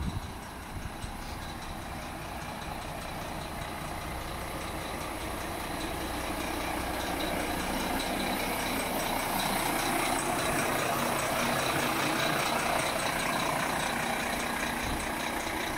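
Volvo FMX 370 mixer truck's diesel engine idling steadily, growing gradually louder over the first ten seconds or so.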